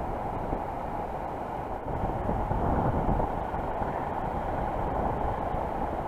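Wind rushing over the microphone during paraglider flight: a steady, low, buffeting rumble that swells a little between two and three seconds in.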